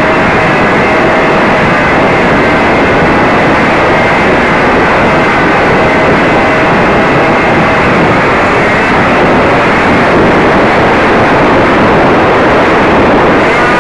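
Radio-controlled model airplane in flight, heard from its onboard camera: a loud, steady rush of wind and propeller noise with a faint motor whine that drifts slightly in pitch.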